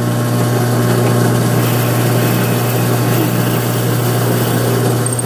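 Benchtop drill press motor running with a steady hum while its bit is fed down into a black walnut block.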